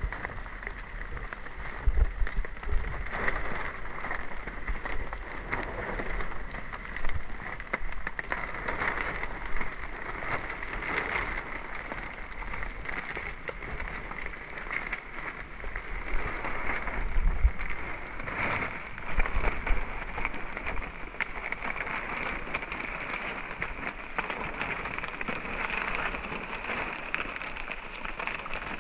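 Steady rain falling on a surface, with many small irregular drop ticks and a few louder dull knocks.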